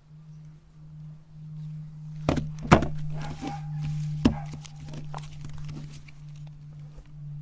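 Electric meat grinder running with a steady low hum. Sharp knocks come about two and a half seconds in and again near four seconds, with crunching and grinding between them as a chocolate bar is fed in and ground.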